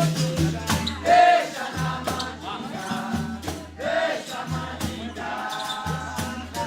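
Capoeira song: voices singing over percussion with a jingling, tambourine-like sound and a repeating low note.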